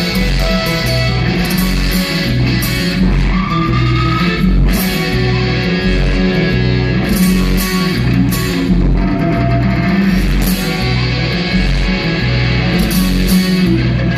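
Live rock band playing an instrumental stretch with no singing: electric guitar over a pulsing bass line, with a short rising guitar note about four seconds in.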